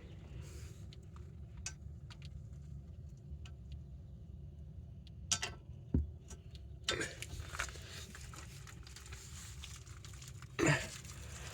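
Socket wrench being fitted to and worked on a rear brake caliper bolt: scattered metal clicks and clinks, growing busier and noisier in the second half, with one louder knock near the end.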